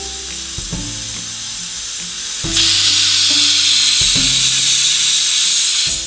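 Indian pressure cooker whistling as its weight valve vents steam: a steady hiss that turns much louder about two and a half seconds in, then stops suddenly at the very end.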